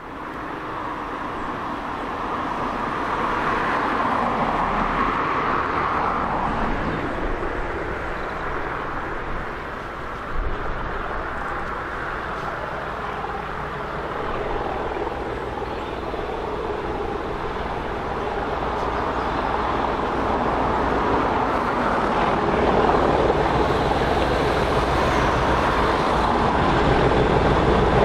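Two Class 97/3 diesel locomotives (rebuilt Class 37s) running under power in multiple, their English Electric V12 engines drumming as the train approaches. The sound grows louder toward the end.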